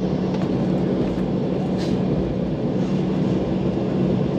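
Cabin noise aboard an Embraer E195 airliner: the jet's engines and airframe giving a steady, even rumble with a constant low hum, the level neither rising nor falling.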